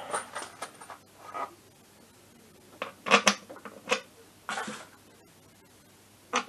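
Steel bolts clinking and scraping against the kick-start cover of a scooter engine as they are handled and tried in its holes: a few scattered clicks and short scrapes with quiet gaps between.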